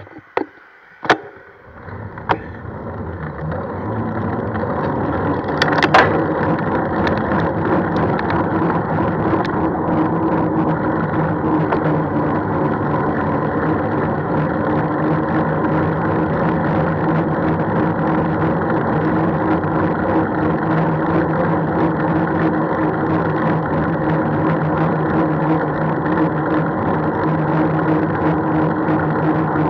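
A few sharp clicks, then a steady rushing noise of travel along the road that swells over the first few seconds and holds level, with a faint steady hum in it.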